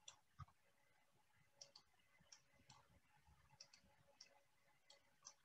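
Near silence: faint room tone with about a dozen faint, irregularly spaced clicks.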